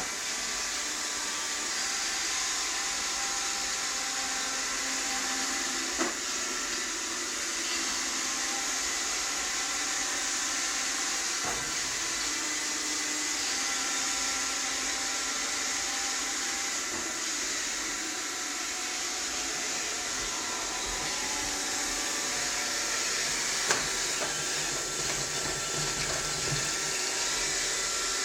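Roomba robot vacuum running steadily: an even hiss with a high motor whine. Two brief knocks come through, one about six seconds in and one about twenty-four seconds in.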